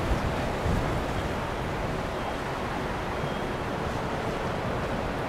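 Steady rushing of water and wind, as from a boat under way, with wind buffeting the microphone in two brief low thumps near the start.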